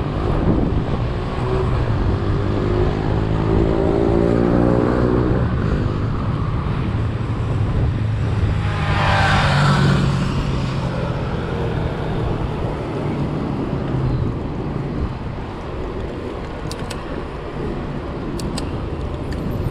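A motor vehicle's engine running steadily, with a brief, louder rush of noise about halfway through.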